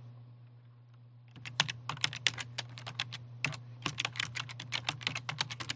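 Typing on a computer keyboard: a quick run of about two dozen keystrokes, starting about a second and a half in, with a short pause partway through.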